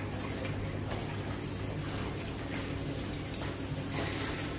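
Tap water running steadily into a sink basin while hands are rubbed and rinsed under the stream.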